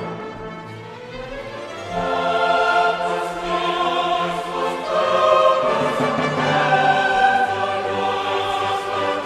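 Choral music: a choir singing sustained notes with orchestral backing.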